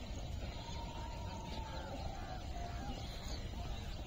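Outdoor ambience: a steady low rumble with a few faint distant calls in the first couple of seconds.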